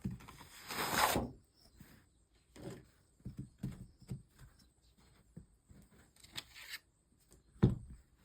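Bench handling noises while soldering stained glass: scattered light knocks and clicks of tools and glass pieces, a louder rustling scrape about a second in, and a sharp knock near the end.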